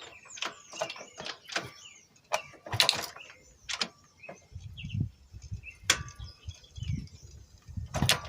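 Irregular metallic clicks and ratcheting from a 110 cc motorcycle engine's exposed timing chain and gears, including a badly worn oil pump drive gear, being turned over by hand. A low rumbling joins in about halfway through.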